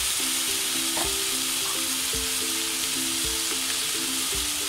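Minced beef, chopped tomatoes and spices frying in a nonstick pan with a steady sizzle. Under it runs background music: a simple melody of held notes and a soft beat about once a second.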